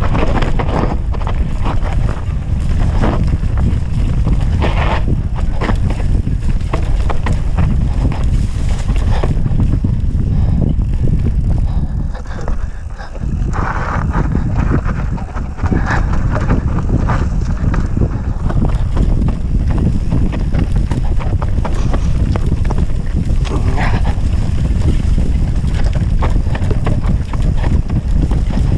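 Wind buffeting the microphone of a camera on a moving mountain bike, over the tyres rolling and the bike rattling on a rough dirt singletrack descent, with scattered clicks and knocks from stones and bumps. The noise eases briefly about halfway.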